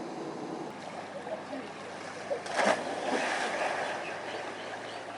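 Steady wash of ocean waves at the shore, with one brief louder sound about two and a half seconds in.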